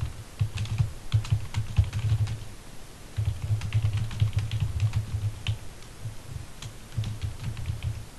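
Typing on a computer keyboard: quick runs of keystrokes, each a click with a dull low thump, broken by two short pauses.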